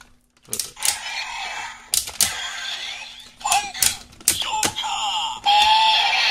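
Sharp plastic clicks and snaps as a DX Fang Memory is fitted onto a DX Double Driver toy belt and the belt is opened, mixed with electronic sound effects from the toys' speakers. About five and a half seconds in, a loud, steady electronic sound effect starts from the belt.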